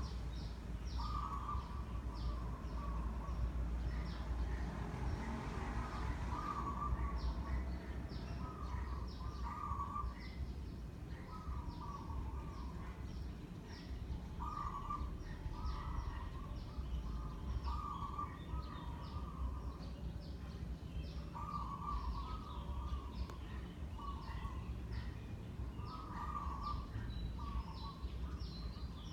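Ceiling fan running with a steady low rumble of motor and moving air, while birds call over and over, a short call every second or two, with fainter high chirps between.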